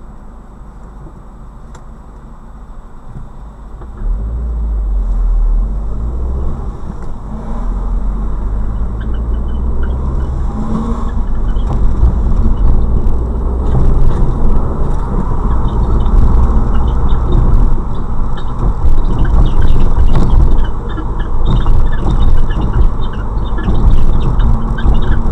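Fiat Bravo driving. Low road and running rumble comes up sharply about four seconds in and keeps building, with short scattered high squeaks over it. The squeak comes with the car in motion whether in gear or not and with the clutch in or out, but not under acceleration.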